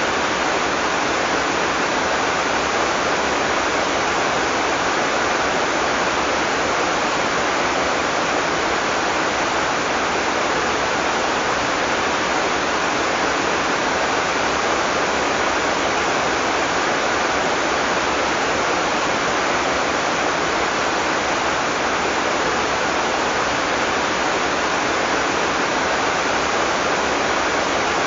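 Heavy tropical rain falling steadily, a dense even hiss with no thunder.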